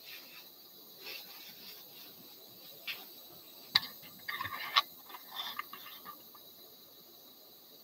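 Handling noise from a camera being picked up and repositioned: faint rustling, with a few sharp clicks and a short clattery rattle about four to five seconds in.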